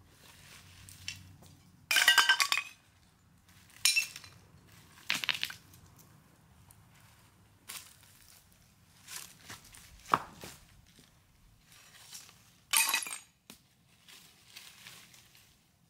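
Dry leaves and twigs crunching and rustling in several short bursts as hands dig through leaf litter on stony ground; the loudest burst comes about two seconds in.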